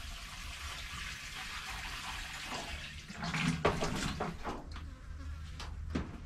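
Water pouring from a plastic watering can onto potted plants, a steady splashing hiss that stops about three seconds in, followed by a few knocks as the can is handled.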